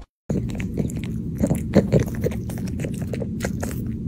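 A pug puppy chewing and gnawing on a chew treat close to the microphone: irregular crunching bites, several a second, beginning after a moment of silence.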